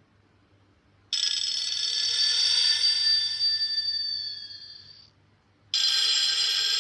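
Nokia N8-00 ringtone playing: a bright, high chiming tone that starts suddenly about a second in and fades away over about four seconds, then starts again and is cut off abruptly near the end.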